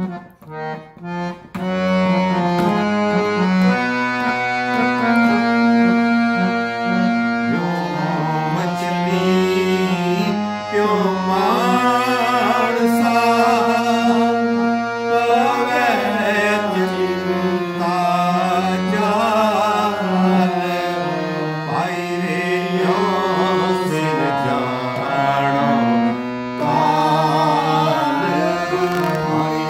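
Harmonium playing sustained chords and a melody line for kirtan, coming in about two seconds in after a brief quiet pause. From about eight seconds in a man's voice sings over it in a bending, ornamented devotional line.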